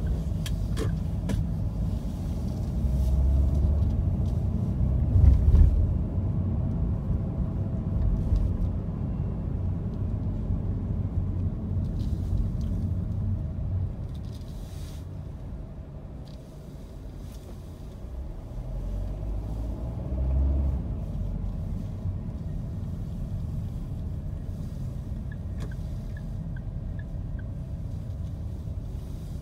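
Low rumble of a car's engine and tyres heard from inside the cabin while driving, swelling louder twice.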